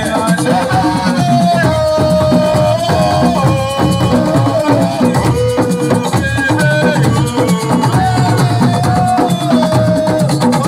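Live assiko band music: dense drumming and hand percussion under a held melody line that slides from note to note.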